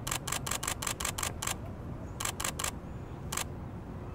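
DSLR shutter firing in quick bursts: about ten rapid clicks in the first second and a half, four more around two seconds in, and a single click near the end.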